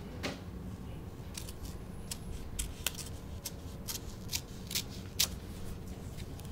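A sealed paper envelope being slit open with a letter opener: a series of short, crisp paper rips at irregular intervals as the blade works along the flap, starting about a second and a half in.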